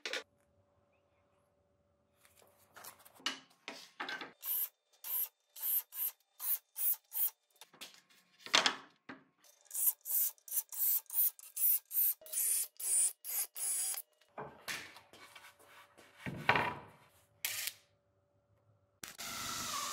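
Pencil scratching across a plywood panel in quick repeated strokes as layout lines are marked. Near the end a power drill starts boring a hole into the plywood with a steady whirring grind.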